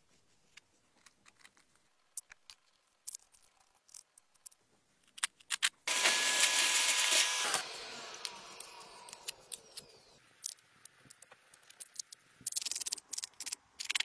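Small metal blade scraping and picking at loose casting sand in a mould, light scratches and clicks. About six seconds in, a shop vacuum runs loudly with a steady hum for under two seconds, then spins down and fades.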